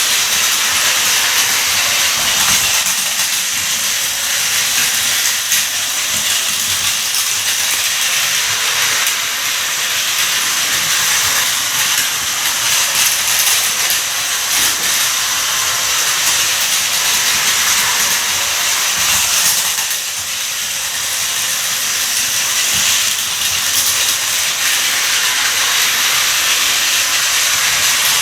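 Plarail toy train running on plastic track: a steady, loud whirring hiss from its small motor and gearbox, with light wheel clatter. The sound dips slightly about two-thirds of the way through.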